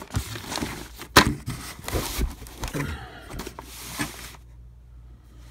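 Clear plastic bag crinkling and rustling as it is handled, with one sharp knock about a second in; the rustling stops a little after four seconds.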